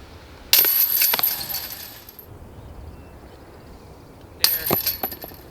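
Chains of a disc golf basket jangling as a putted disc hits them, twice: a long metallic rattle and ringing about half a second in, and a shorter one near the end.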